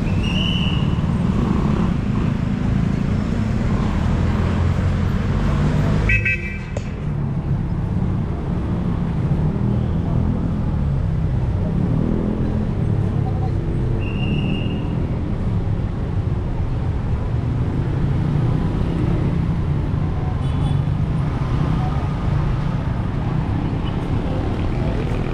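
Street traffic: a steady low rumble of passing vehicles, with a few short high-pitched toots, one near the start and one about halfway through.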